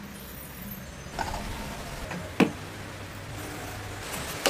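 Handling of a rusty antique crank telephone: a few small knocks and clicks of its metal and wood parts, with one sharp knock about two and a half seconds in, over a faint low hum.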